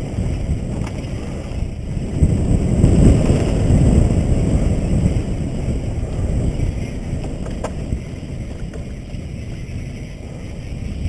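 Wind buffeting a helmet-mounted GoPro's microphone as a mountain bike rides fast down a dirt trail, with tyre rumble on the dirt, loudest a few seconds in. A couple of faint clicks from the bike sound over it.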